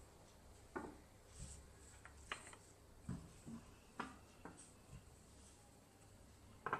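Faint, irregular light knocks and clicks of a rolling pin moving over dough on a granite worktop, with a louder knock right at the end.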